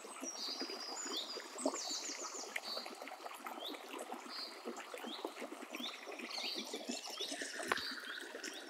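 Quiet nature ambience: water trickling in a stream while small birds chirp repeatedly, with a brief trill about two seconds in.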